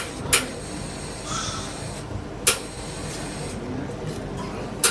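Metal spatula scraping rolled ice cream across a chilled steel cold-plate pan, with three sharp clanks of metal on steel about two seconds apart.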